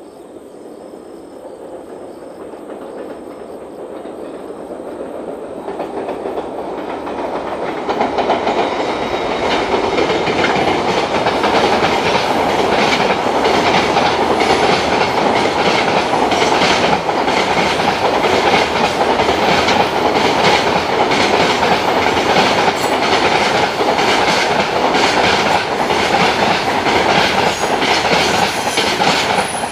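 Freight train hauled by an EF510 electric locomotive, approaching and growing louder over the first ten seconds or so. Its wagons then roll past steadily, with a continuous clickety-clack of wheels striking rail joints.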